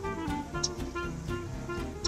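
Instrumental background music: held melody notes over a bass line, with a light steady beat.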